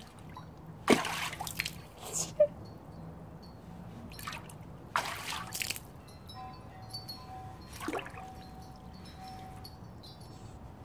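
A child's hands splashing and slapping the water in a large plastic planter pot full of rainwater: several separate splashes, with dripping and trickling in between.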